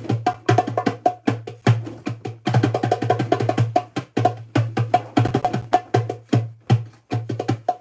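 Drums being played by hand with sticks: a fast, steady run of sharp strikes, several a second.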